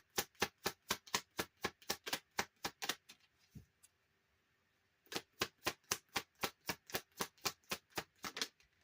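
A deck of tarot cards being shuffled by hand, the cards slapping together in an even rhythm of about four a second; the shuffling stops for about two seconds partway, then starts again.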